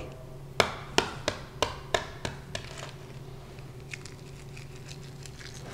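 A cooled hard-boiled egg being tapped to crack its shell: about six sharp knocks, roughly three a second, then faint crackling as the shell is peeled away by hand.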